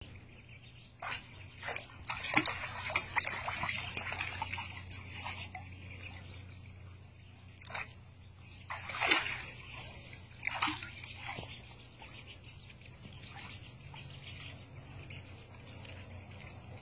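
A puppy wading in a shallow plastic kiddie pool, its paws splashing and sloshing the water in short spells, loudest about two seconds in and again around nine seconds.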